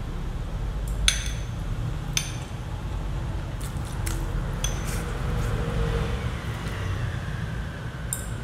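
Stainless steel chopsticks clinking against a porcelain rice bowl: two clear ringing clinks about a second apart, then several lighter taps while food is picked up. A steady low hum runs underneath.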